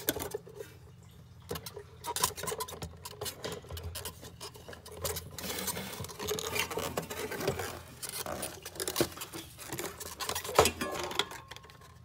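Old fuel pump module being lifted out of the fuel tank opening by hand. Its plastic body and fuel line connectors make irregular small clicks, rattles and scrapes, with one sharp knock about ten and a half seconds in.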